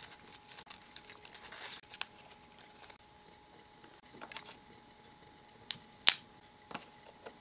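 Small paper wrapper rustling and crinkling as it is unfolded, then light clicks of tiny plastic miniature pieces and a small metal pot being handled and set down, with a sharp click about six seconds in.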